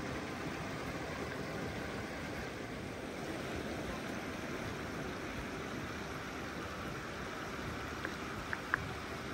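Steady rushing of running water, an even hiss with no rhythm. Three short clicks come near the end.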